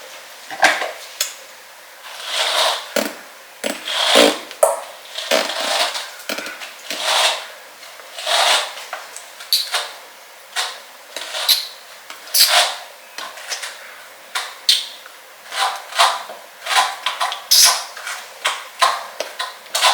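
Tangled natural hair being worked through in repeated short, rough strokes, about one a second, as it is detangled.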